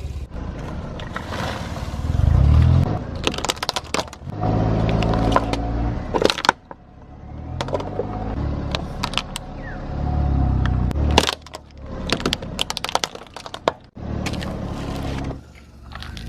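Car tyres rolling over and crushing crackers, with many sharp cracks and crunches, over a car engine that swells in level several times.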